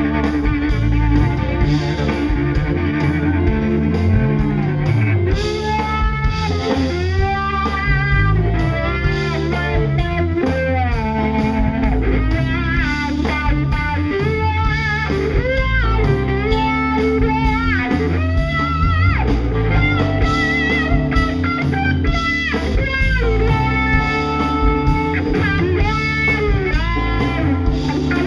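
Live blues-rock band in an instrumental jam: a lead electric guitar solos with notes bent up and down and wavering, over drum kit and bass.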